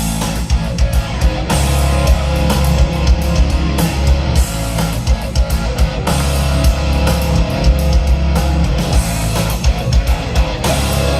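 Loud rock music with electric guitar, drum kit and heavy bass, played through an RCF HDL 30 line-array PA system with 9006 subwoofers.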